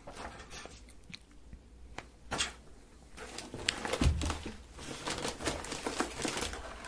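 Close-miked crinkling and clicking as a chocolate candy is unwrapped and eaten, sparse at first and thickening into dense crackling about three seconds in, with a dull bump near the middle.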